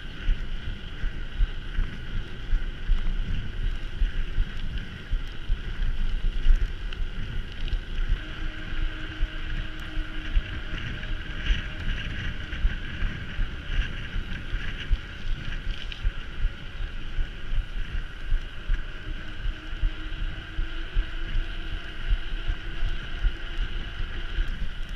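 Wind buffeting the microphone and the jolting rumble of a mountain bike riding over rough ground, under a steady high hum.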